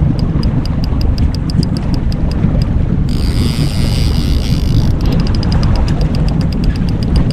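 Wind buffeting the microphone over a boat motor running while trolling. A rapid train of sharp, high ticks runs through it, and a hiss comes in about three seconds in and lasts nearly two seconds.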